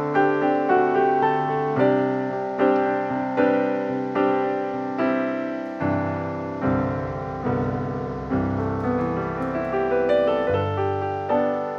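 Background piano music: a melody of struck notes over changing chords, a new note about every half second.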